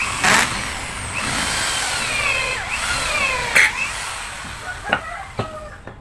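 Handheld electric drill boring into a block of wood, its motor whine rising and falling in pitch as the bit loads and frees, with two sharp clicks along the way. The drilling stops about four and a half seconds in, followed by a few short knocks.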